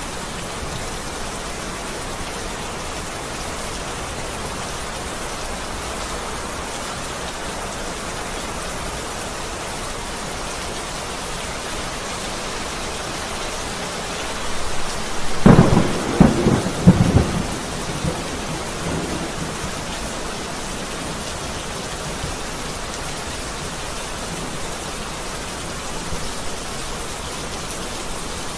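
Steady rain with a thunderclap about halfway through: a building rumble that breaks into several loud cracks over two or three seconds, then fades back into the rain.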